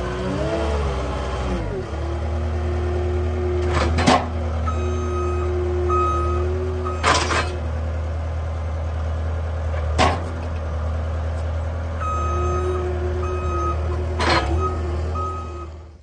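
CAT skid steer's diesel engine running under load, its pitch rising and falling in the first two seconds and then holding a steady drone. Its reversing alarm beeps in short runs, and there are four sharp knocks as the grapple handles the log. The sound drops away just before the end.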